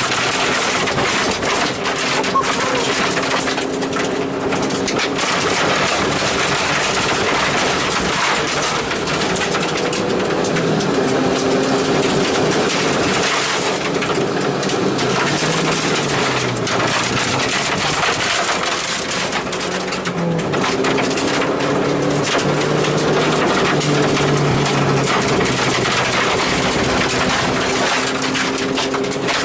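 Car engine running at changing speeds, its pitch stepping up and down, over steady road and tyre noise, heard from inside the car.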